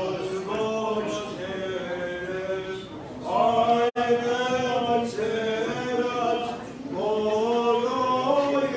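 Armenian Apostolic liturgical chant, sung unaccompanied in long held phrases. The sound drops out for an instant about four seconds in.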